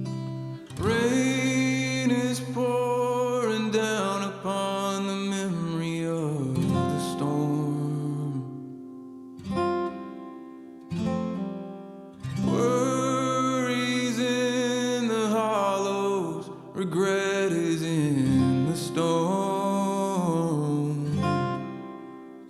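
Background music: an acoustic guitar song with a singing voice, in two long phrases with a brief break near the middle.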